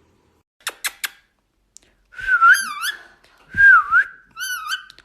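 Indian ringneck parrot calling: three quick sharp chirps, then a run of loud dipping whistles.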